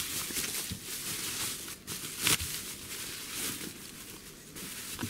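Bubble wrap rustling and crinkling as it is pulled open by hand, with small crackles throughout and one sharper crackle a couple of seconds in.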